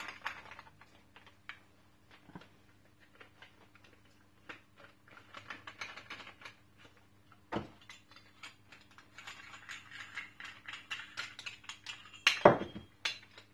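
Small drain-fitting parts being handled and fitted together by hand: many light clicks and scrapes, a louder knock about halfway through and the loudest one near the end. A steady low hum runs underneath.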